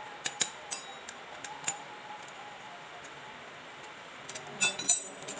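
Sharp metallic clicks and clinks as a motorcycle's aluminium fuel-injection throttle body and a screwdriver are handled: a few separate clicks in the first two seconds, then a quick, louder cluster near the end.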